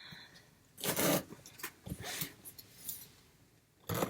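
Packaging being handled: a few short rustling, scraping bursts as items and a parcel are picked up and moved.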